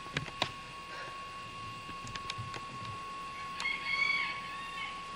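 A single drawn-out animal call lasting just over a second, a little past the middle, with a few light clicks at the start.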